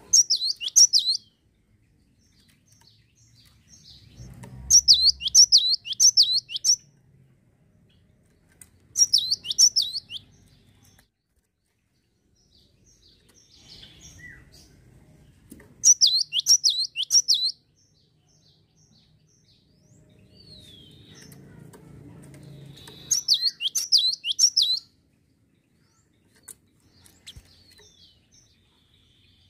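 Cinereous tit (gelatik batu) calling in short, rapid bursts of sharp falling notes, each burst lasting about a second and repeated five times a few seconds apart.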